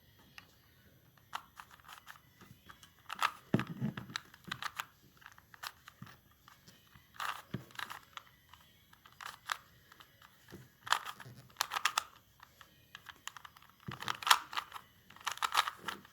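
Plastic Rubik's Cube being twisted by hand: clicking and clacking of its layers turning, in irregular bursts of several quick turns with pauses between.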